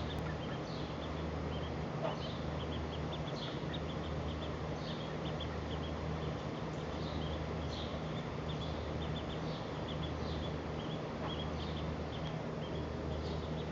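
Duckling peeping: a steady run of short, high peeps, over a low steady hum.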